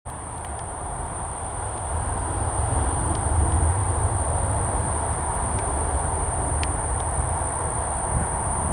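Boeing 777-200 twin-jet on final approach, its engines a low rumble that grows louder over the first couple of seconds as it nears and then holds steady. A steady high-pitched tone sits over it, with a few faint short chirps.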